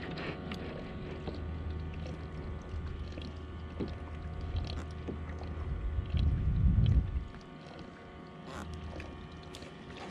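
Low rumble of water and wind around a plastic sit-on-top kayak, with scattered small clicks and knocks from a fishing rod and spinning reel being handled. A louder low rush comes about six seconds in.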